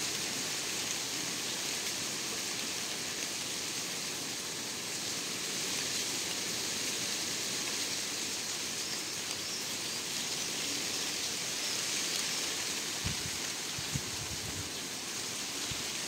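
Steady rain falling, an even hiss that doesn't change.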